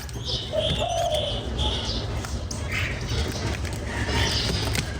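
Birds calling: two short low notes and longer high notes in the first two seconds, over a steady low rumble.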